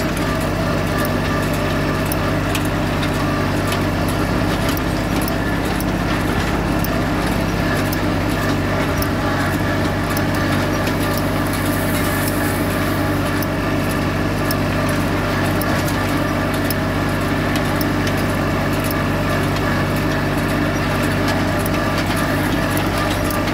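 A tractor engine running steadily while pulling a rolling-bar side-delivery hay rake, the rake's reel, bars and spring teeth rattling with many quick, irregular ticks.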